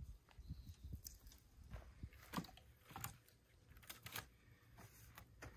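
Faint knocks and clacks of split firewood being handled and set onto a woodpile, with three sharper knocks in the middle.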